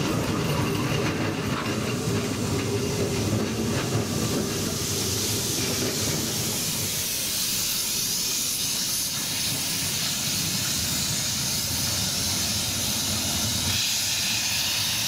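Narrow-gauge steam locomotive with steam hissing loudly. A low rumble fills the first few seconds, then a steady high hiss of steam takes over from about five seconds in.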